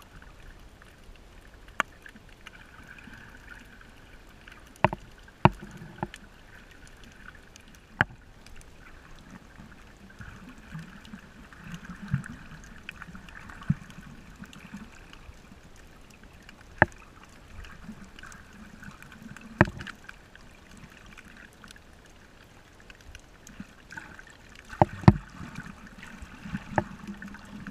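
Muffled water noise picked up underwater through a camera housing, with sharp clicks or knocks every few seconds and a louder cluster of them near the end.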